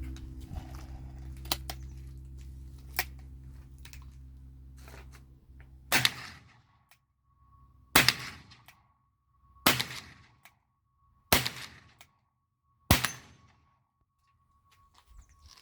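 Five shots from a .357 Magnum revolver-action rifle, fired at an even pace about a second and a half apart, each with a short ringing tail. Before them there is a steady low hum and a few faint clicks.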